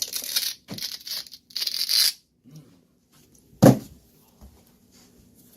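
Protective plastic film being peeled off a new flat-screen TV, three quick ripping strips in the first two seconds. A single sharp knock follows about halfway through, the loudest sound.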